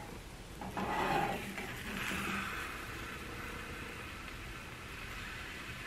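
Soft, steady sizzling hiss of a three-egg omelet cooking in a small nonstick frying pan over medium-low heat, with a brief shuffle about a second in.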